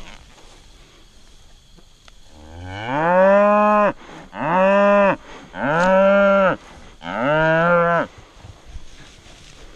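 Roped and held-down calf bawling four times in quick succession, loud, each bawl about a second long, the first rising in pitch as it starts.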